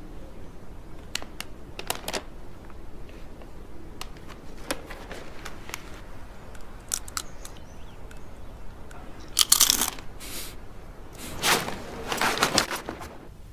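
A crinkly snack bag being handled and rustled, with crunching, in short scattered bursts; the loudest bursts come about nine and a half seconds in and again near the end.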